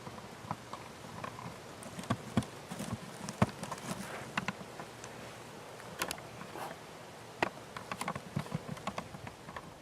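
Irregular sharp clicks and taps, some in quick clusters, with a few faint short squeaky notes among them.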